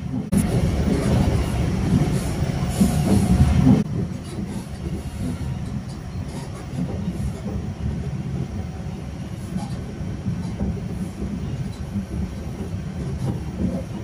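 Passenger train running along the track, heard from inside the carriage: a steady low rumble of wheels and car body, louder for the first few seconds, then settling to an even level.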